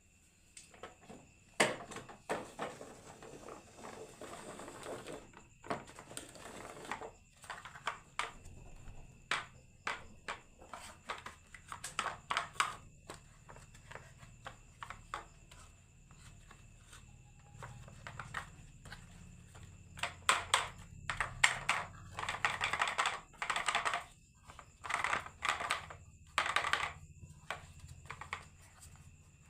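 Marbles rolling and clattering down a wooden marble run: many sharp clicks and knocks, with stretches of rattling as marbles run along the track.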